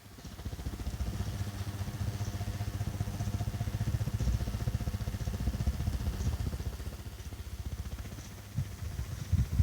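Niko FC-06-600 mini ceiling fan running: a steady motor hum, with a fast, fluttering low rumble of its airflow against the microphone.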